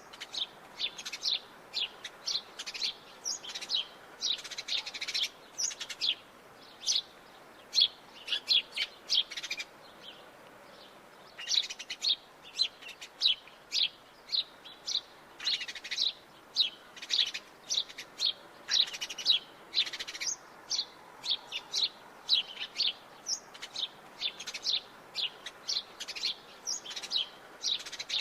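Sparrow chirping in quick runs of short, high chirps, with a pause of about a second and a half near the middle.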